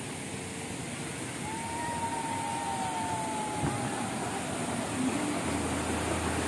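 Outdoor park ambience: a steady rushing noise, with a long whistle-like tone that falls slightly in pitch, starting about a second and a half in and lasting about three seconds.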